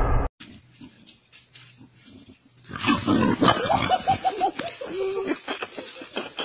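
Pig grunting and squealing in a quick run of short calls as it charges, starting about three seconds in.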